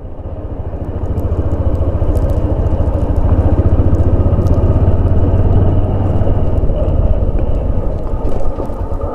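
Motorcycle engine running at low revs with a steady rapid pulse, growing louder over the first few seconds and easing off near the end.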